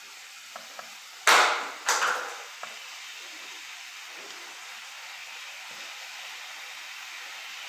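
Ground beef frying in a pan on a gas burner, with a steady sizzle throughout. About a second in come two sharp, loud bursts of noise half a second apart, each fading quickly, as ham slices are laid into the pan.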